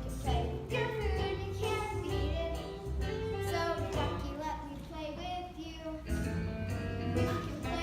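Young voices singing a musical-theatre number over musical accompaniment with a steady low bass line.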